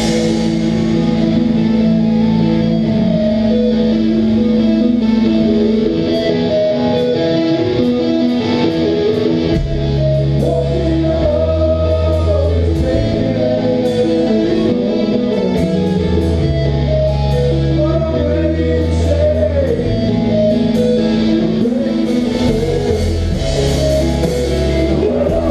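Live melodic hardcore band playing: electric guitar chords held and ringing over changing bass notes, with sharp hits joining in from about six seconds in.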